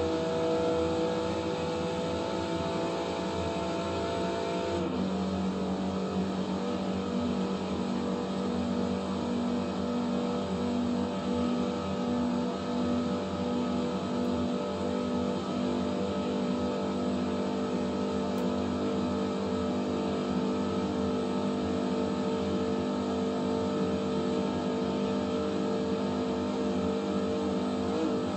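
Aston Martin DBS Superleggera's 5.2-litre twin-turbocharged V12 pulling hard at close to 200 mph, heard from the cabin over heavy wind and tyre noise. Its pitch climbs slowly, drops with an upshift about five seconds in, then creeps up again as the car nears its top speed.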